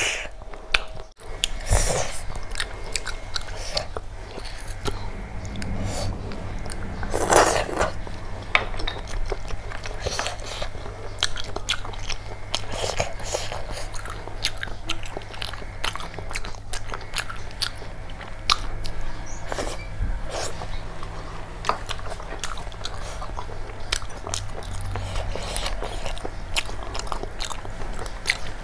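Close-miked eating of curried snails by hand: sucking the meat from the shells and chewing, with many short wet clicks and smacks and one longer, louder sound about seven seconds in. A faint steady low hum runs underneath.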